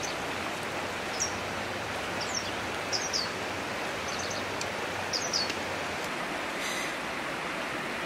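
A steady, even hiss, with short, high bird chirps about five times over it.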